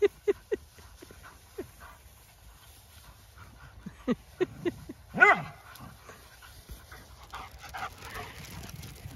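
Small dogs yapping as they play: scattered short, high barks in quick clusters, with one longer bark a little past halfway.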